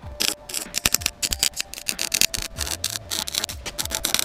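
MIG welder crackling unevenly as a bead is laid around the seam of a steel differential pan on an axle casing.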